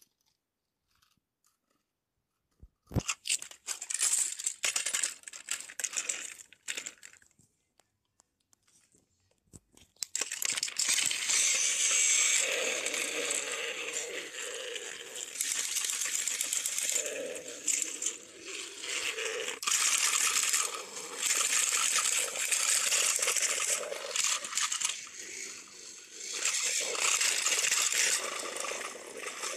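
Small battery-powered toy train engines running on plastic track, their gear motors whirring and wheels scraping as two engines push against each other head to head. Some scattered rattling comes a few seconds in, then the steady whirring starts about ten seconds in and runs on, rising and falling.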